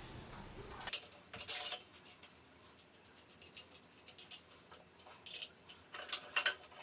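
Scattered metallic clinks and taps of steel parts being handled and fitted, as the rack ring is slid onto the drill press column, with a few clusters of quick knocks.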